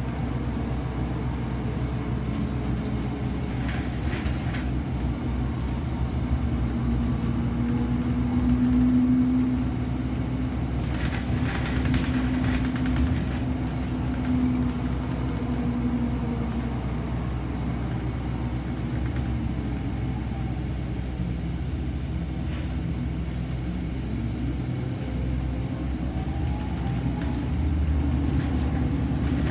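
Interior ride noise of a city transit bus under way: a steady low engine and road rumble. A humming tone swells for several seconds in the middle, and there is a little light rattling.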